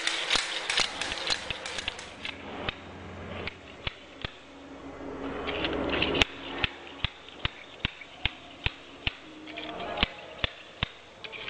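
Steel scraper blade being driven against hardened mortar on a concrete floor: a run of sharp knocks, quick at first, then about two to three a second, with one louder strike about six seconds in.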